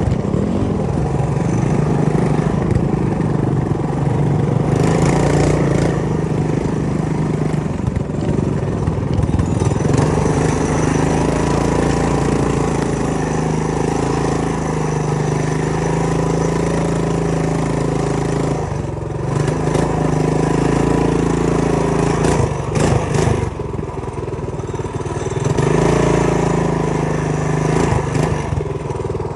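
Megamoto 212 minibike's single-cylinder 212 cc engine running under throttle on a rough dirt trail, with a steady engine note. The engine eases off briefly twice in the last third, and there are occasional knocks from the bumps.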